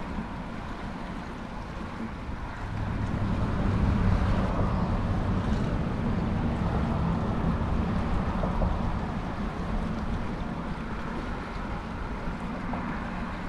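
Low steady engine hum of a boat motor running nearby. It swells about three seconds in and eases off near the end, over a hiss of wind and water.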